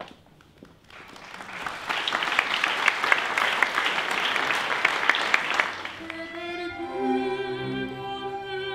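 Audience applauding. About six seconds in the clapping gives way to a string orchestra playing, with a mezzo-soprano singing over it.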